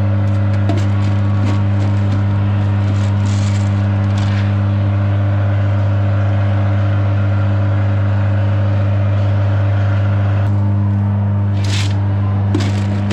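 Loud, steady machine hum at one unchanging pitch, with scattered light knocks and rattles on top.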